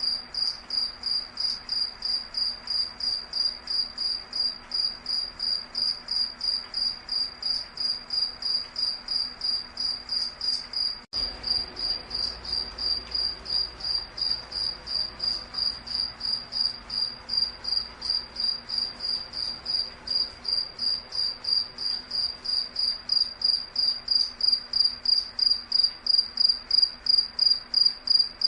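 An insect chirping steadily: a high, even tone pulsed about three times a second. It breaks off for an instant about eleven seconds in.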